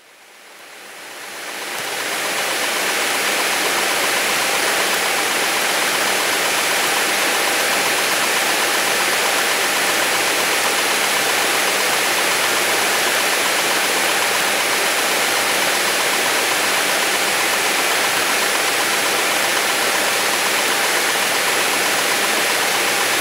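Light aircraft's cabin noise in flight, the engine, propeller and rushing air blending into a steady, even roar with a faint steady whine in it, on final approach. It fades in over the first two seconds.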